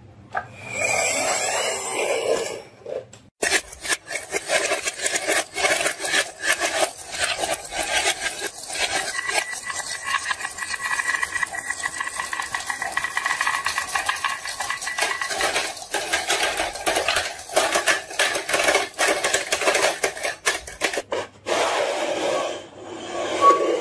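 Many glass marbles rolling down a wavy wooden marble track, clicking and clattering against the wood and each other in a dense, continuous rattle that starts a few seconds in and dies away shortly before the end.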